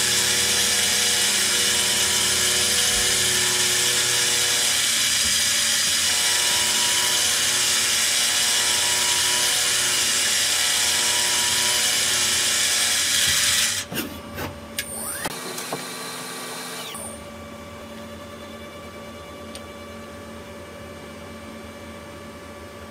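CNC lathe cutting a brass workpiece with a live rotary tool: a loud, steady cutting noise with a high hiss and steady whines. About 14 seconds in the cut stops abruptly, followed by a few clicks and a sliding tone as the machine winds down, leaving a quieter steady machine hum.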